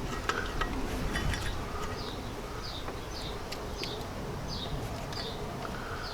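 A small bird chirping over and over, short high falling notes about one and a half a second, with a few light metallic clicks from parts being handled in the first second and a half.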